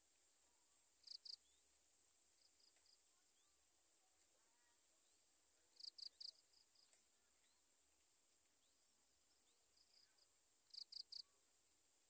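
Faint insect chorus, a steady high-pitched hum, broken three times by a quick run of two to four sharp high chirps, about five seconds apart.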